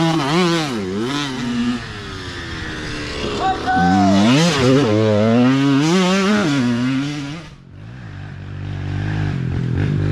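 Youth dirt bikes riding past one after another, engines revving up and down as the riders work the throttle and shift. A second bike comes through about four seconds in, and a steadier, lower engine carries on near the end.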